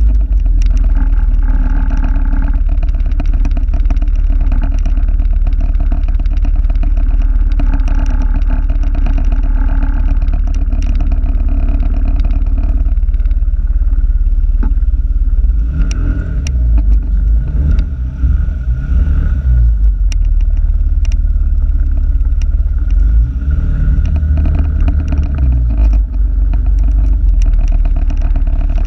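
A vehicle under way, heard through a camera clipped to its rear-view mirror: a heavy, steady low rumble with a fast, dense rattle and scattered sharp clicks, the engine note rising and falling in the second half.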